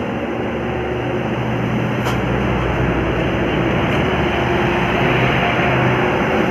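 Passing road traffic: a heavy vehicle's engine running steadily under load with tyre and road noise, growing gradually louder.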